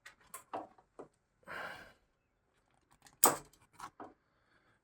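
Scattered short clicks and knocks of small metal parts being handled, with a short rustle about a second and a half in and one sharp click a little past three seconds in, the loudest sound: the exhaust valve servo cables being unhooked from the servo motor.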